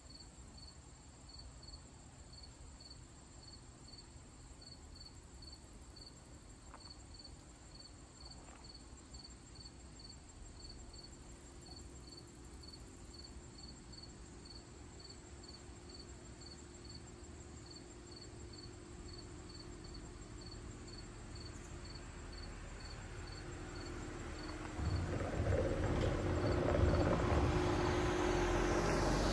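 Insects chirping steadily, a regular chirp about twice a second over a high continuous trill. A car grows louder as it approaches and rumbles through the covered bridge near the end, becoming the loudest sound.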